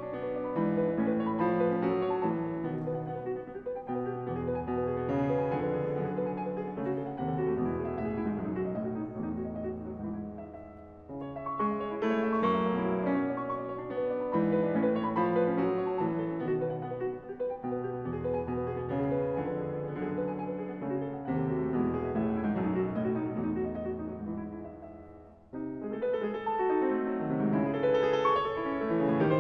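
A Steinway concert grand piano played solo in a classical piece. The music dies away about eleven seconds in and again about twenty-five seconds in, picking up each time, and is loudest near the end.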